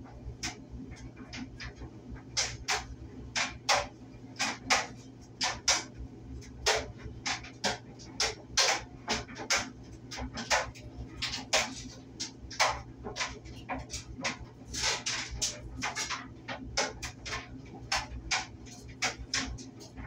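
Clothes dryer running: a steady low hum of the motor and drum, with irregular sharp clicks and knocks from the tumbling load, one to three a second.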